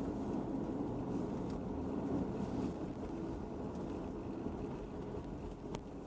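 Steady vehicle running noise: a low engine and road rumble while driving along.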